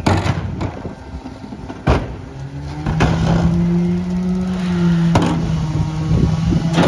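Garbage truck engine revving up about two and a half seconds in and then holding a steady higher pitch. Loud metal bangs come at the start, about two seconds in, about five seconds in and at the end.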